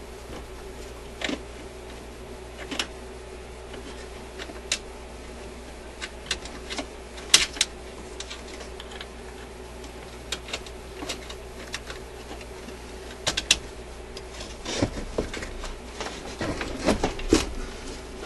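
Scattered small metallic clicks and taps from the metal levers and clips under an Admiral suitcase record player's changer mechanism being worked by hand, over a steady low hum. A busier run of louder clattering comes near the end as the mechanism board is tilted up.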